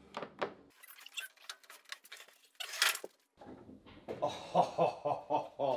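Clicks and knocks of wooden workbench parts being handled at the vise, with a brief scraping noise a little before the middle. In the last two seconds a wavering, pulsing squeal joins in.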